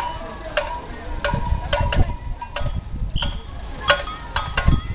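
Irregular sharp metallic clinks and knocks, a few a second, some with a short ring, over a background murmur of voices.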